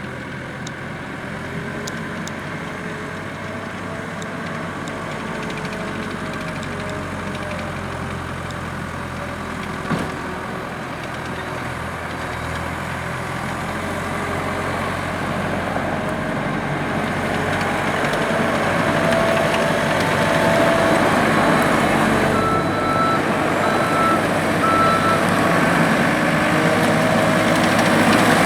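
A 2008 ASV RC-100 skid steer's Perkins turbo diesel runs steadily and grows louder past the halfway point, with a single knock about ten seconds in. Near the end a backup alarm beeps at an even pace as the machine reverses.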